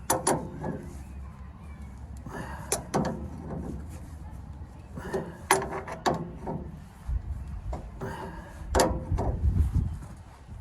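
Wrench clanking and knocking against metal steering parts in several bursts while working on the pitman arm nut.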